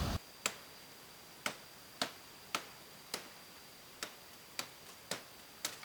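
A series of nine sharp, short clicks or knocks, roughly two a second and slightly uneven, over a faint steady high-pitched tone.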